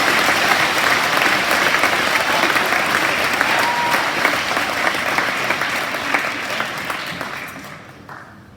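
An audience clapping, a steady round of applause that fades and dies away in the last second or two.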